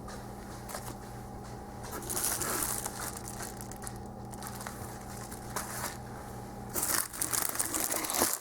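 Packaging and paper crinkling as items are handled, louder about two seconds in and again near the end, over a steady low electrical hum.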